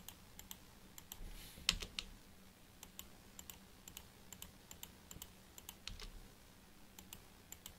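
Faint, scattered clicks of a computer mouse placing polyline points, irregular, with one louder click about 1.7 seconds in.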